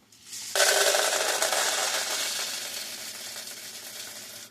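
Dry popcorn kernels being poured, a dense rattle that starts about half a second in and slowly tapers off.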